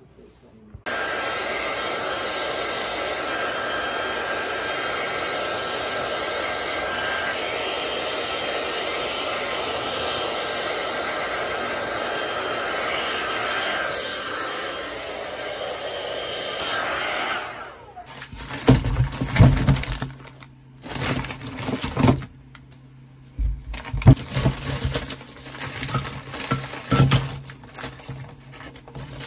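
Handheld hair dryer blowing steadily for about seventeen seconds, then switched off. Then comes a run of irregular knocks and clatters, ending with frozen shrimp dropped from a plastic bag into a glass mug.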